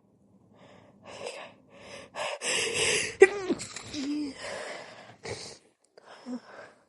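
A woman's gasping, hitching in-breaths building up to a sneeze, with one sudden sharp stifled sneeze a little past the middle, followed by more shaky breaths.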